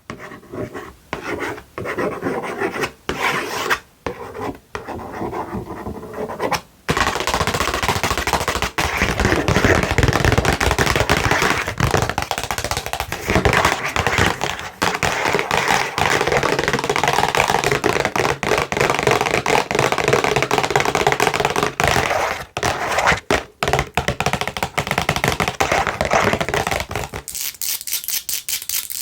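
Long fingernails tapping on a tissue box with short pauses, then scratching it fast and without a break from about seven seconds in. Near the end the scratching turns thinner and higher.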